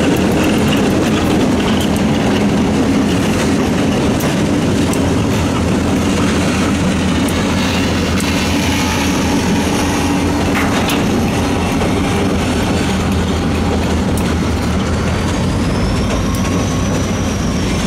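Freight train passing over a wooden trestle. The diesel locomotives' engines drone in the first seconds, then give way to the steady rumble and clatter of freight-car wheels over the rail joints. A faint high squeal rises and falls near the end.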